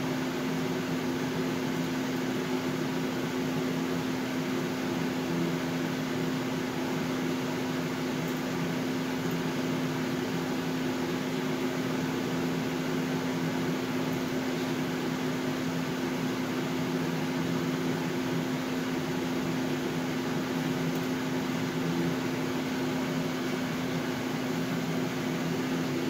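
Steady electric machine hum with a low drone that holds one pitch, from the CNC plasma table's equipment running at standby before the cut begins.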